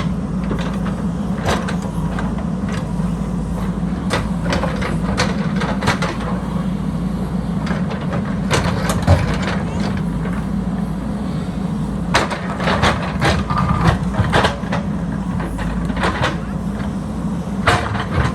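JCB backhoe loader's diesel engine running steadily under load, with repeated knocks and clanks from the machine's work on earth and stones.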